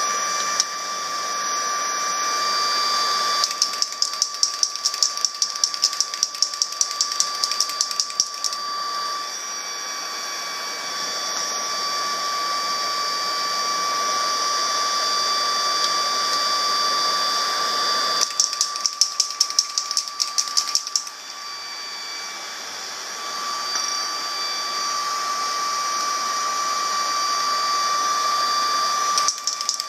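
Bicycle mechanism being turned, giving runs of fast, even ticking, about seven clicks a second, three times, over a steady high-pitched hum; this is the abnormal noise being traced on the bike.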